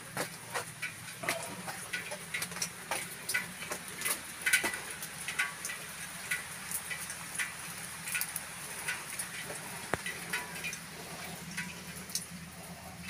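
Rain water dripping and pattering onto wet steps and rock: irregular sharp taps of drops, several a second, over a steady hiss.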